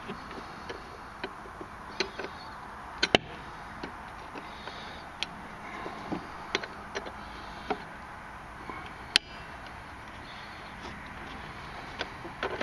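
Irregular sharp metal clicks and light scrapes of a thin pick and screwdriver working at a snap ring on a snowmobile starter pinion shaft. The two loudest clicks come about three seconds in and about nine seconds in.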